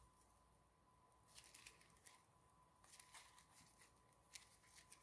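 Near silence broken by faint rustles and small clicks, in three brief clusters: punched paper-and-card pages of a small scrapbook album being handled on a small binder ring.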